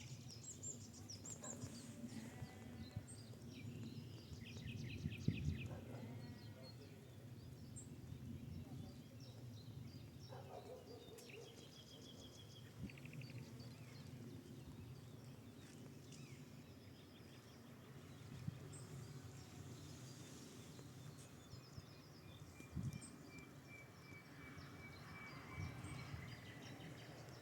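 Faint birdsong: scattered chirps and quick trills from several small birds, over a low steady wind rumble. About ten seconds in, a farm animal bleats once.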